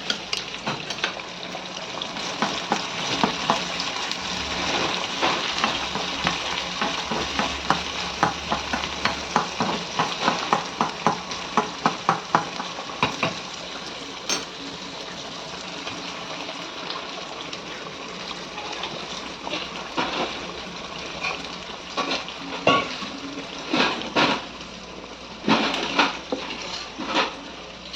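Crushed shallots, garlic and green chilli with whole spices frying in hot oil, sizzling steadily, while a spoon stirs and clinks against the pan in bursts of quick taps.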